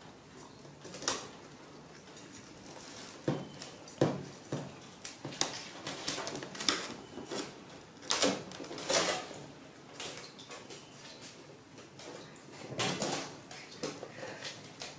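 Irregular knocks, taps and scrapes of a baby monkey's hands and nails against a large metal rice pot as it digs sticky rice out of it, with a few sharper clanks of the pot on the metal table.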